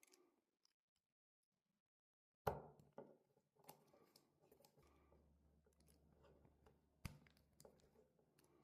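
Faint clicks and knocks: a sharp knock about two and a half seconds in, scattered small taps after it and another sharp click near seven seconds, over a faint low hum that starts about five seconds in.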